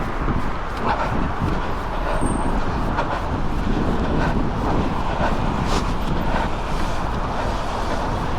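Wind buffeting a small action camera's microphone in a steady low rumble, mixed with road traffic noise.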